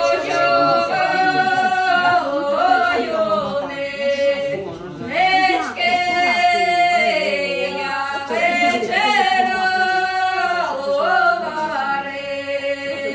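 Several voices singing a slow song together without accompaniment, in long held notes, the phrases breaking off every five or six seconds.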